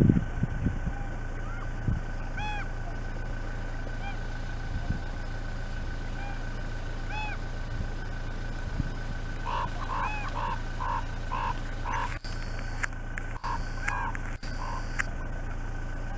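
Common ravens calling: separate short, arched croaks every few seconds, then a quicker run of calls about ten seconds in. A steady low rumble runs underneath.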